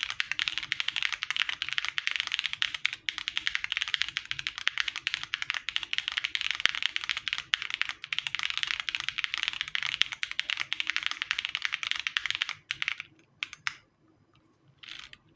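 Fast typing on an Akko Alice Pro Plus mechanical keyboard with stock Gateron Cream Soda linear switches and GMK keycaps, built without foam. It is a dense, rapid run of keystrokes that stops about twelve and a half seconds in, followed by a few scattered strokes and a short flurry near the end.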